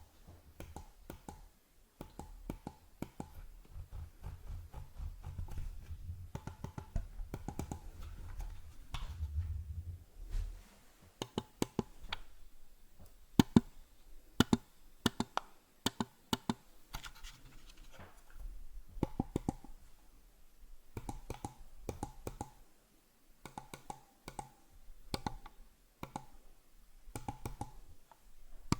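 Computer mouse handled close to the microphone: for the first ten seconds or so it rubs and scratches with small ticks, then its buttons are clicked in quick clusters of sharp clicks.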